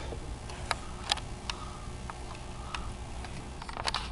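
A handful of sharp, irregular clicks and taps, the camera being handled inside a vehicle, over a steady low rumble of the vehicle's cabin.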